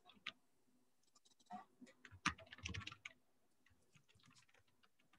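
Faint typing on a computer keyboard: a few scattered keystrokes, then a quick run of keys about two to three seconds in.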